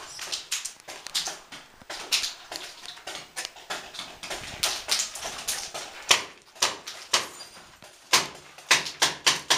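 Footsteps and scuffing on the rubble-strewn concrete floor of a derelict building, irregular clicks and knocks, then, about eight seconds in, a rapid run of loud, sharp paintball shots, about three a second.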